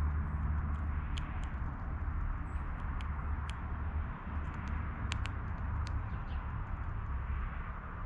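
Birds and squirrels feeding at a backyard feeder: irregular sharp clicks and taps of seed being pecked and cracked, with a faint high chirp or two, over a steady low rumble.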